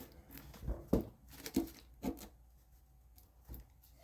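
About half a dozen light taps and knocks from handling parts on a workbench, spread irregularly, loudest about a second in.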